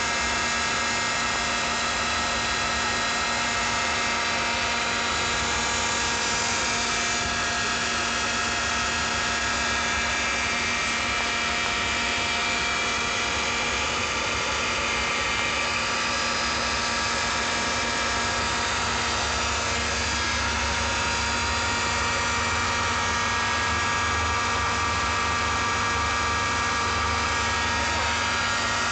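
Electric swimming pool pump motor running steadily: a constant mechanical hum with several high steady tones on top, unchanging throughout.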